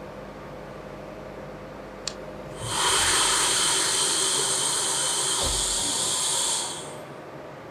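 CNC turning centre (Citizen ANX-42SYY) near the end of its machining cycle: a low machine hum, a sharp click about two seconds in, then a loud steady hiss from inside the machine for about four seconds, with a short low thud near its end.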